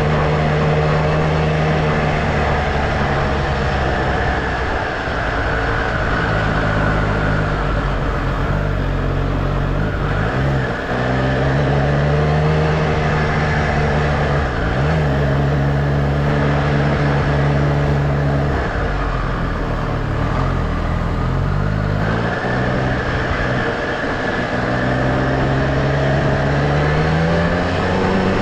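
Triumph Street Triple R's three-cylinder engine running under way, holding a steady pitch for stretches and rising and falling several times with the throttle and gear changes, over wind and road noise.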